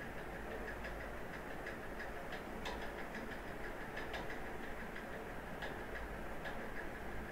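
Computer keyboard being typed on, scattered key clicks at an uneven pace over a steady hiss and low hum.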